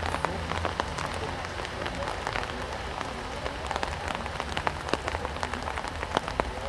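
Steady outdoor noise with a low rumble and many irregular sharp ticks, like rain pattering on a surface close to the microphone.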